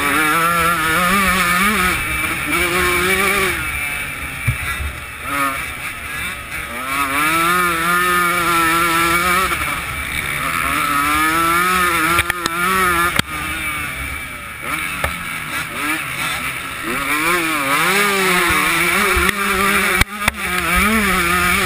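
125cc two-stroke motocross bike engine at racing speed, its pitch climbing hard and dropping off again and again as the rider works the throttle through the gears. A few sharp knocks come through near the middle and toward the end.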